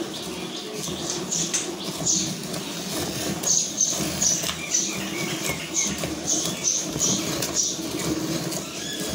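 Hand milking a cow: jets of milk squirting from the teats into a metal pail of foamy milk, a rhythmic hissing spurt about twice a second.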